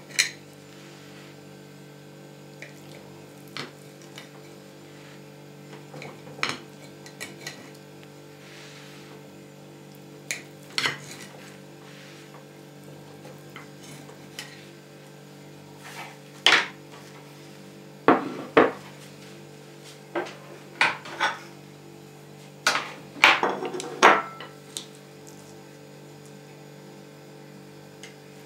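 Metal knife and cake server clinking and scraping against ceramic plates as a baked casserole is cut and a slice is lifted onto a second plate. Scattered short clinks, the loudest bunched about two-thirds of the way in and again a little later.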